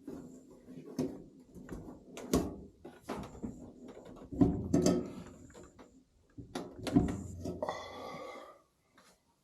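A series of knocks and clunks, like parts of a tumble dryer being handled and moved, with a short squeaky tone near the end.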